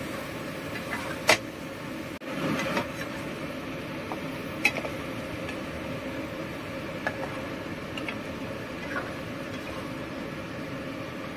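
A spatula knocking and scraping against a frying pan as tofu, egg and tomatoes are stirred together, a handful of separate sharp clicks over a steady background noise.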